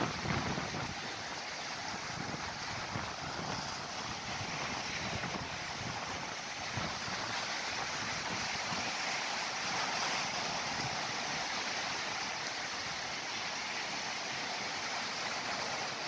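Sea surf washing steadily onto a rocky shore, with some wind buffeting the microphone.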